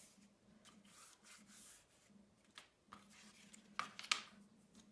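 Faint rubbing and rustling of a cardstock cut-out being pressed into a paper shadow-box frame, with a few light ticks of paper handling about four seconds in.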